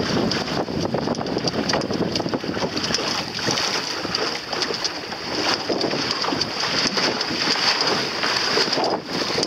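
Wind buffeting the microphone over water splashing and rushing along the hull of a sailing boat under way, a loud, steady noise with constant small flickers.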